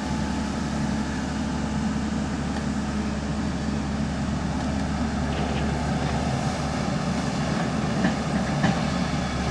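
JCB 3DX backhoe loader's diesel engine running steadily at work, with a few faint knocks in the second half.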